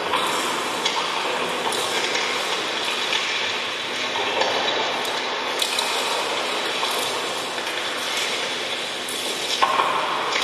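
Live experimental electronic music played through a PA: a dense, grainy noise texture of hiss and clattering grit with little bass, its layers switching abruptly every couple of seconds.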